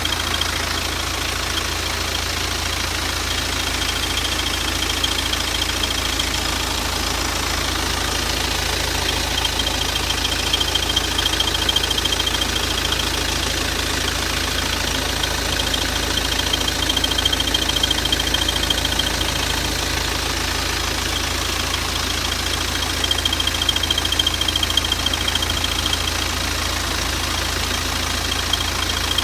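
BMW 318d's four-cylinder diesel engine idling, with a high-pitched squeal that comes and goes for a few seconds at a time. The squeal sets in when the air-conditioning compressor is switched on; its cause is unknown to the owner.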